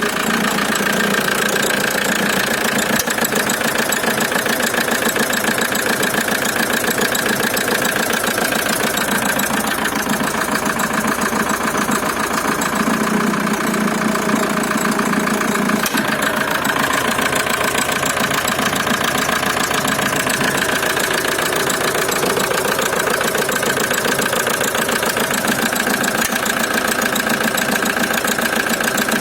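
VW 1.9 TDI (1Z) four-cylinder diesel engine running steadily, with a periodic knock that the owner places around the oil filler cap and cannot explain.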